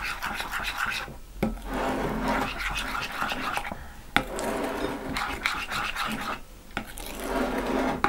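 Metal spoon stirring and scraping around a glass bowl of thick white craft glue mixed with baking soda, green food colouring and glitter. The rasping scrape comes in stretches broken by short pauses, with a few sharp clinks of the spoon against the glass.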